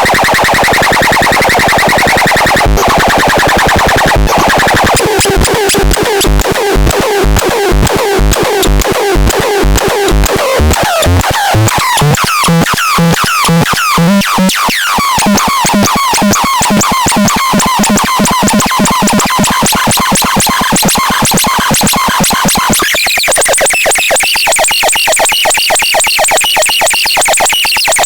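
Electronic synthesizer music made of fast repeating pulses and sweeping, glitchy tones. The texture changes about eleven seconds in, when a stepping low note takes over, and again just before twenty-three seconds.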